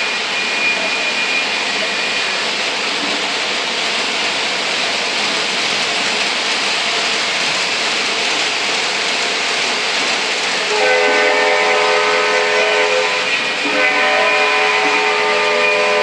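O gauge model trains running on three-rail track, a steady rumble and rattle of wheels and motors. About 11 seconds in, a model diesel locomotive's electronic sound system blows its horn in two long blasts, the second still sounding at the end.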